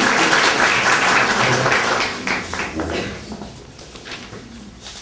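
Audience applauding, the clapping thinning to a few last separate claps and dying out about three seconds in.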